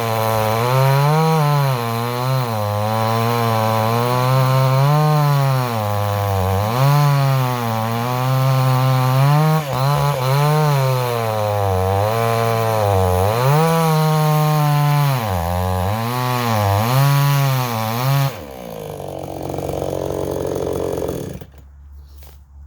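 Dereal 6220G two-stroke gas chainsaw cutting through a large log, its engine pitch repeatedly dropping under load and picking back up. About eighteen seconds in it comes off the cut and drops to a lower, steadier sound, which stops abruptly near the end, leaving a few faint clicks.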